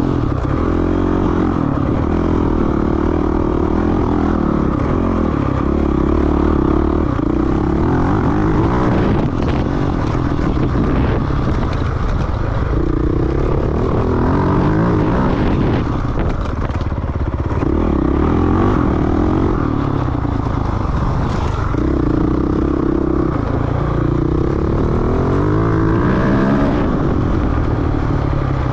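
Off-road dirt bike engine being ridden hard, revving up and falling back again and again through gear changes and throttle, with occasional knocks.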